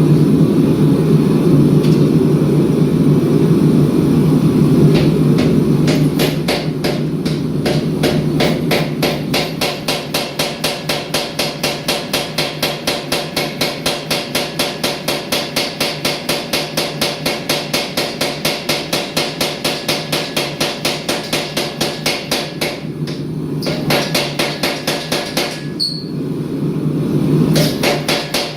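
Hammer blows on a hot steel Damascus billet, struck rapidly and evenly at about three a second, with two short breaks near the end. For the first few seconds a steady low roar comes before the strikes begin.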